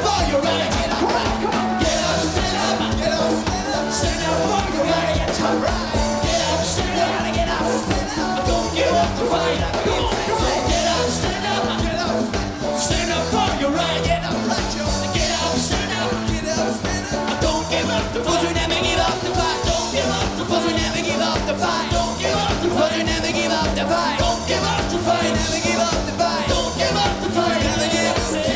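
Live reggae band playing a steady groove, with a repeating bass line under the band and a voice singing over it.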